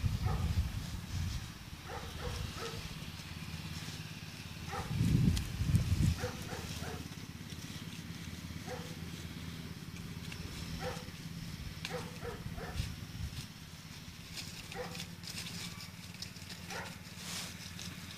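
Dogs giving short yips and whines every second or two, with low rumbles on the microphone at the start and, loudest, about five seconds in.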